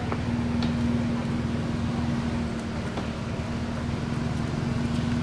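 Steady low mechanical hum holding one constant pitch, like a small motor running, with a few faint ticks on top.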